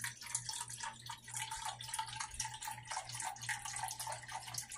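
Chicken broth pouring in a steady stream into a plastic measuring cup.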